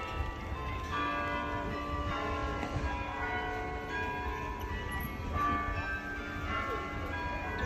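Church bells ringing, many overlapping tones struck one after another and ringing on, over a low background rumble.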